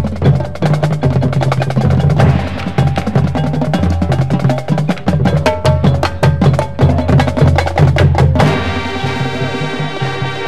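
Marching band percussion playing fast: drums with pitched mallet percussion in rapid strikes. About eight and a half seconds in, the horns come in with a held chord.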